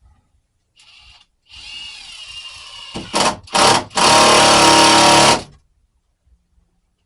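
Power drill driving a screw through plywood into the framing: a few short pulses of the trigger, then a loud steady run of about a second and a half that stops abruptly as the screw seats.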